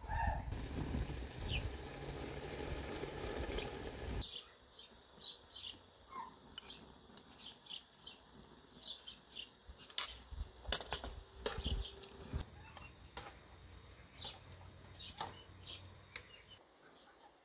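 Small birds chirping repeatedly, with a few sharp clinks of a metal spoon against dishware. A steady low rumble fills the first four seconds and stops suddenly.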